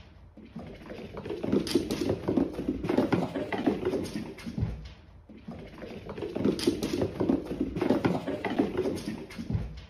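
Two cats scampering and tussling on a wooden floor: a quick pattering of paws with soft knocks and scuffles. It comes in two spells, with a lull about halfway through.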